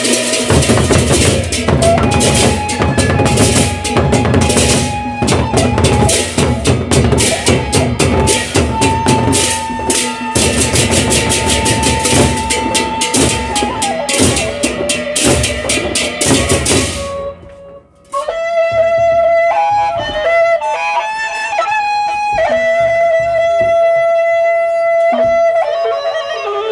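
Gendang beleq ensemble playing: large drums and cymbals in a dense, fast rhythm with a held melodic note over it, stopping suddenly about two-thirds of the way through. After a brief break a solo wind instrument plays a slow melody of held notes.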